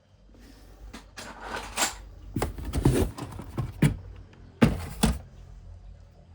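Handling noise: a rustle about a second in, then a run of knocks and clicks, and two sharp knocks near the end, as toys and their packaging are handled.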